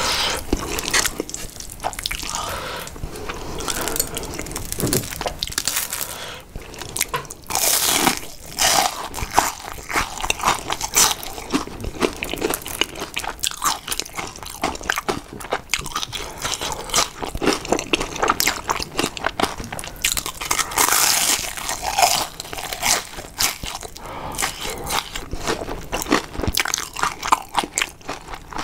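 Close-miked eating sounds: repeated crunchy bites into a breaded fried shrimp, with chewing, sometimes several crunches a second. Near the start there is a wet sound of saucy noodles being lifted and eaten.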